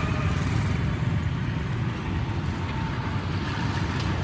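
Steady low rumble of street background noise, mostly road traffic, with no distinct events.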